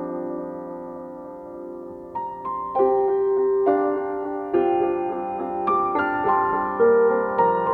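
Slow, soft piano music: a held chord fades away over the first two seconds, then single notes and chords enter one after another at an unhurried pace.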